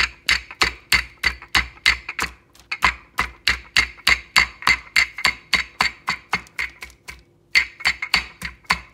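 Wooden rolling pin pounding a chicken breast through cling wrap, flattening and tenderizing the meat. Quick, even strikes about four a second, with a short pause about seven seconds in before the pounding resumes.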